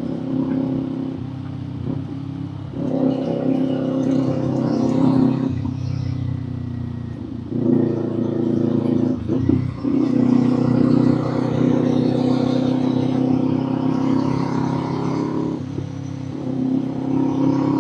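Kawasaki Z400's parallel-twin engine running while the bike is ridden, with a steady note. It gets louder several times as the throttle is opened, and eases off briefly about seven and nine and a half seconds in.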